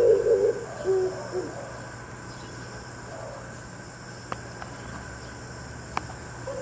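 Oriental turtle dove cooing: the end of a phrase of low, hooting coo notes, stopping about a second and a half in. A fainter coo from a more distant dove follows, and two short clicks come later.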